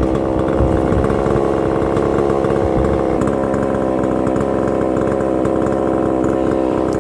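Husqvarna 262XP 60cc two-stroke chainsaw running steadily at high revs, cutting a big ash log, with a slight change in engine pitch about three seconds in.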